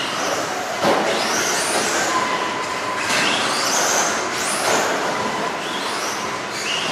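RC off-road car running laps on a dirt track: its electric motor's whine rises sharply in pitch about five times as it speeds up, over a steady hiss of tyres on loose dirt. There is a single thump about a second in.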